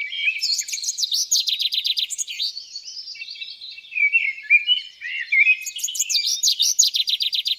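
Forest songbirds singing in early-spring woods. There are quick trills of rapid high notes near the start and again near the end, with warbled chirps between them.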